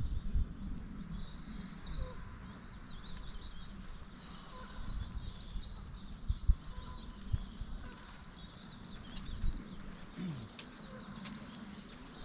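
Small woodland birds chirping and singing continuously, over a low, uneven rumble of wind buffeting the microphone. A single thump about six and a half seconds in is the loudest sound.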